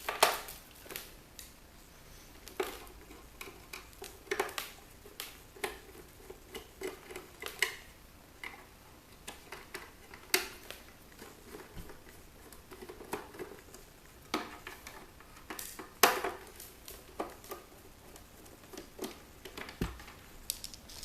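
Irregular clicks, taps and knocks of a roof-mounted car DVD player's parts being handled and pried apart by hand, with a few sharper clacks and a dull thump near the end.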